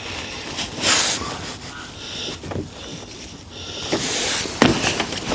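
A man breathing heavily as he strains at a job: two loud, hissing exhales, about a second in and again near four seconds in, over quieter rustling.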